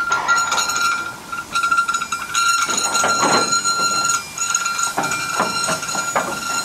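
A slow-moving steam-hauled train of wagons, its wheels squealing with a steady high tone that breaks off and returns several times, over clanks and knocks from the running gear and wagons.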